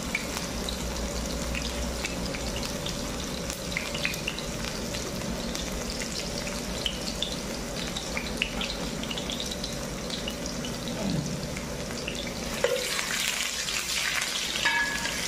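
Sliced onions sizzling and crackling in hot oil in an aluminium pot. Near the end a spatula starts stirring them and the sizzle gets louder.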